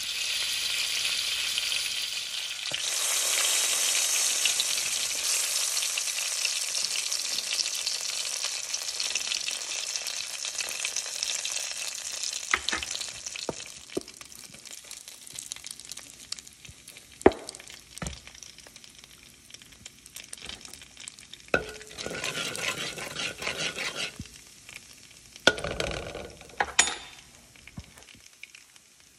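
Ground spices sizzling in hot oil in a stainless steel pot: a loud, steady frying hiss that slowly dies down over the second half. A few sharp clicks and knocks come through in the second half.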